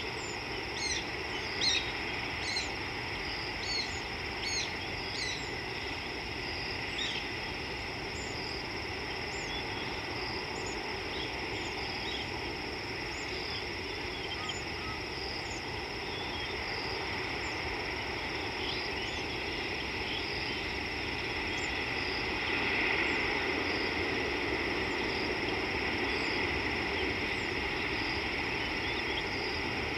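Outdoor bush ambience: many birds give short, quick chirps, thickest in the first several seconds. Underneath runs a steady high trill that pulses regularly, with a low rushing noise that swells a little about two-thirds of the way through.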